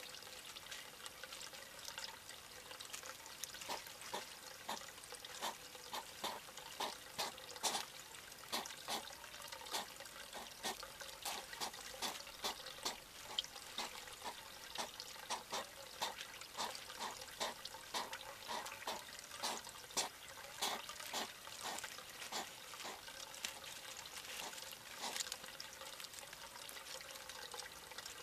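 European hedgehogs chewing dry food pellets, a dense, irregular crunching of short clicks several times a second.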